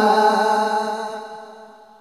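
A male Quran reciter's voice holding the last long note of a tilawah phrase at a steady pitch, then fading out gradually over the second half.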